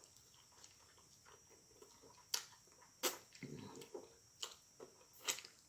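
Close-miked eating mouth sounds: wet lip smacks and clicks while chewing. It is quiet for about two seconds, then there are four sharp smacks with softer chewing noises between them.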